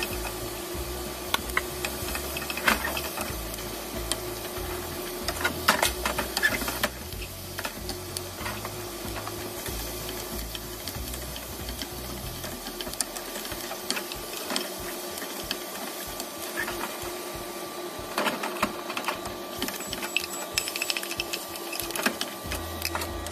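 Wooden spatula stirring and scraping food in a frying pan, with scattered knocks on the pan that bunch up about six seconds in and again after about eighteen seconds. A steady mechanical hum runs underneath throughout.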